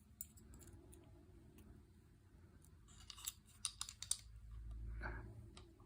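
Faint handling noise of small gun parts: a few light clicks about three to four seconds in, then a soft low bump near the end.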